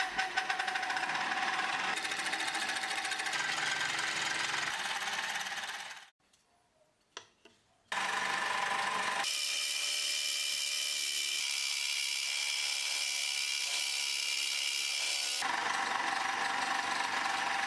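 Homemade scroll saw driven by a DC motor, running with its blade stroking up and down. It stops about six seconds in and starts again about two seconds later. While the blade cuts a thin wooden sheet, the sound turns higher and brighter for several seconds in the middle.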